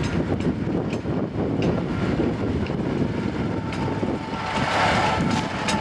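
Massey-Harris Pony tractor's small four-cylinder Continental petrol engine running steadily as the tractor drives along towing a plough. A steady whine joins in about halfway through and grows as the tractor comes closer.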